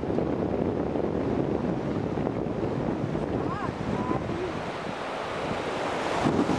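Sea surf washing on the shore, with wind buffeting the microphone.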